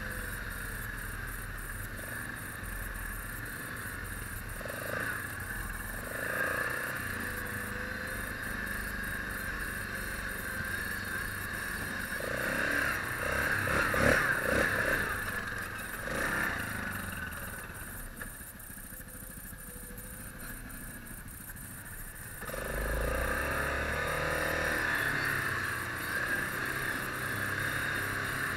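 ATV engine running under way on a rough, leaf-covered dirt trail, with the machine's rattles and jolts over the ground. It gets louder around the middle, eases off for a few seconds, then picks up again near the end.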